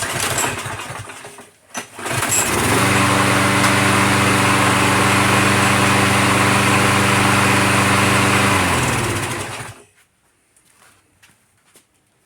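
Warm restart of a Craftsman push mower's small engine, fitted with a new carburetor. After uneven starting noise it catches about two seconds in and runs at a steady speed with no surging, showing the new carburetor has cured the surge. Near the end it is shut off and winds down to a stop.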